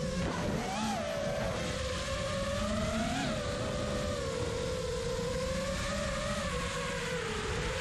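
A 5-inch FPV quadcopter's Hyperlite 2207.5 2550kv brushless motors and Gemfan props whining in flight, the pitch gliding up and down with throttle, over a steady rush of wind and prop wash.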